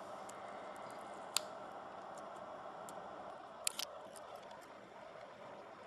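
A few small, sharp clicks and ticks, a single one about a second and a half in and a quick cluster of two or three just before the four-second mark, over a steady faint hiss: tools and fingers handling the small parts of a BlackBerry Torch 9800 opened up for disassembly.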